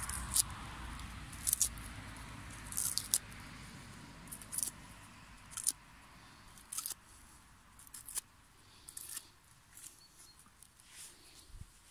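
Split birch firewood being stacked by hand, with irregular short dry knocks of wood on wood and crackly rustles of birch bark and shavings.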